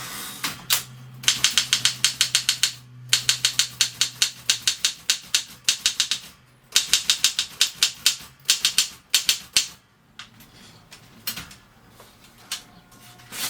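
Keys of a 1950 Mercedes manual office typewriter striking in quick typing, about five or six letters a second, in three runs with short pauses, then a few scattered clicks near the end.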